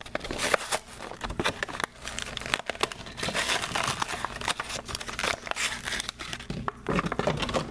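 Stiff clear plastic blister pack of a Mattel diecast toy car crackling and crinkling as it is pried and torn away from its cardboard backing card, with many irregular snaps.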